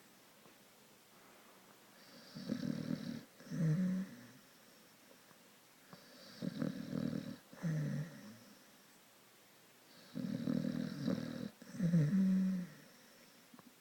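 Staffordshire Bull Terrier snoring in deep sleep: three rounds of snores about four seconds apart, each a longer snore followed at once by a shorter one.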